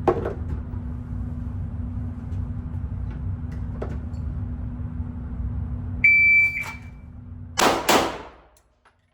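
A shot timer's start beep, a steady high tone for about half a second, followed about a second and a half later by two pistol shots about 0.4 s apart: a timed draw and double-tap. A steady low hum runs underneath until the shots.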